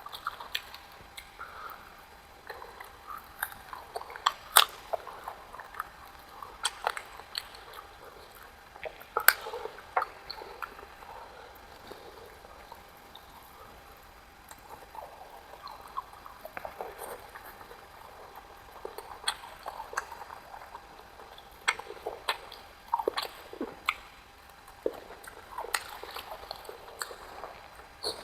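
Close-miked sounds of a person eating: wet chewing and lip smacks with many sharp clicks, the loudest about four and nine seconds in.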